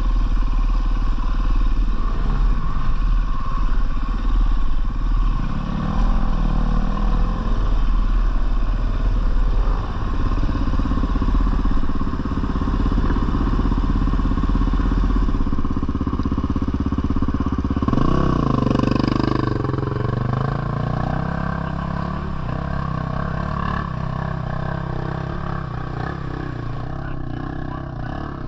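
Husqvarna FE450 four-stroke single-cylinder dirt bike engine running while being ridden, its note rising and falling with the throttle; the revs climb sharply about eighteen seconds in, then settle.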